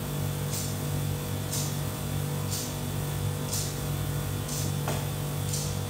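Quiet background music: a steady low drone with a soft hissing beat about once a second.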